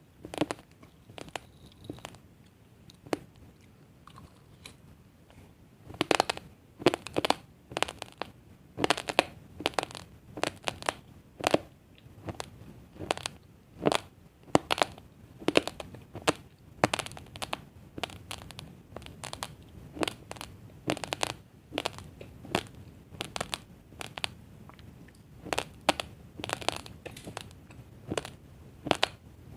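Raw, uncooked basmati rice grains crunched between the teeth, heard close up as sharp, crisp crunches. A few scattered crunches come first, then about six seconds in they settle into a steady run of chewing.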